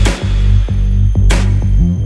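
Electronic dance music with a deep, sustained bass and a steady beat about twice a second, with a crashing hit at the start and again just under halfway through.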